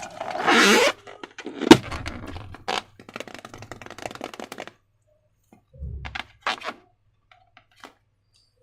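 Hands working with balloons and slime-making materials: about a second of hiss, then a sharp crack, followed by a run of small crackling clicks. Near the middle it goes quiet, then comes a dull thump and a few more clicks.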